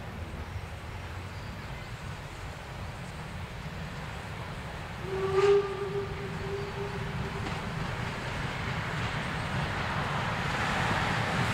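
DR Class 99.23 2-10-2 tank steam locomotive 99 236 approaching with its train, a low rumble that grows louder as it nears. About five seconds in it sounds its steam whistle once, a loud blast of about two seconds that fades after its start.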